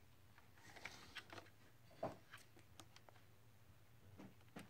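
Near silence with a few faint, scattered clicks and light taps from a hard plastic toy truck being turned over in the hand.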